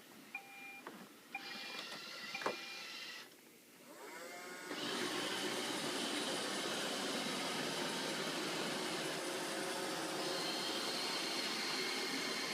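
iRobot Roomba 595 robot vacuum starting a cleaning run: a few short beep tones, then its motors spin up with a rising whine about four seconds in and settle into a steady vacuuming hum.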